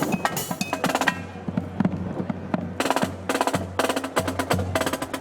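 Marching band percussion playing a quick, dense rhythm of drum strokes and sharp clicks, with a few brief brass tones near the start. Strong wind rumbles on the microphone underneath.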